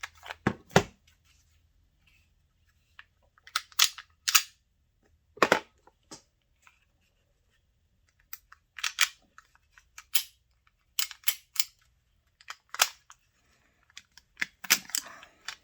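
Sharp clicks and clacks of small hard parts and a hand tool being handled and worked loose during a teardown, coming in irregular clusters with short pauses between.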